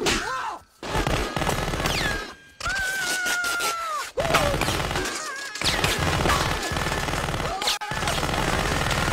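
Film sound effects of automatic gunfire in about four long bursts with short breaks between them, with a man's yelling cries over the shooting.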